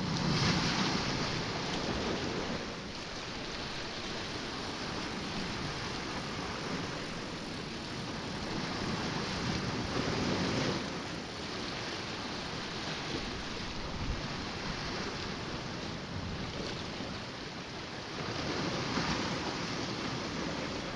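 Sea waves washing against the rocky shoreline, a steady rushing that swells louder a few times, with some wind on the microphone.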